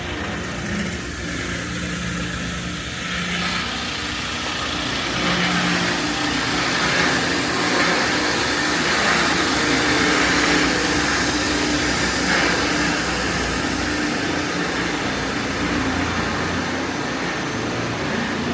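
An engine running steadily with a broad hiss, growing louder about a third of the way in and easing off slightly later.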